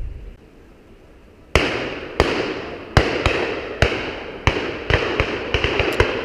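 A rapid, irregular volley of shotgun shots from several guns at a driven pheasant shoot: about a dozen reports in under five seconds, each echoing, coming faster towards the end.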